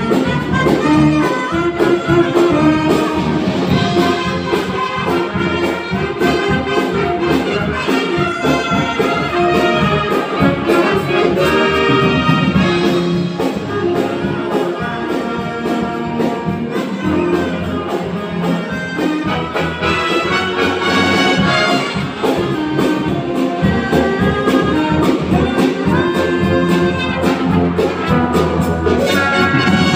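Military brass band playing a tune, with trumpets and saxophones among the players, led by a conductor.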